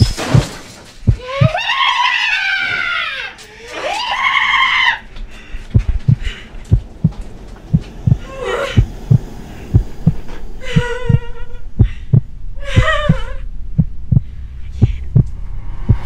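A heartbeat sound effect thumping steadily, about two beats a second, under several high-pitched screams and shrieks.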